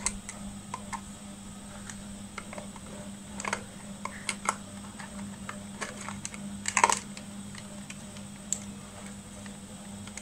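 Scattered light clicks and rattles as a multimeter's test leads and probes are pulled out of the meter's plastic case and handled, with a burst of clicks about seven seconds in.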